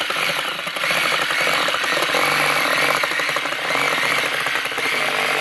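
DeWalt 20V Max DCS381 brushed cordless reciprocating saw running at speed with a wood-cutting blade, sawing through half-inch plywood. A steady, fast buzzing saw cut.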